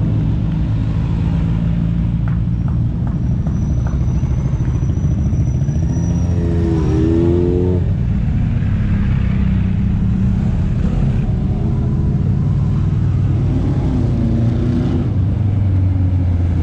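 Motorcycle engines running at low speed in a slow procession, with a short rise and fall in engine pitch about seven seconds in and again near fourteen seconds.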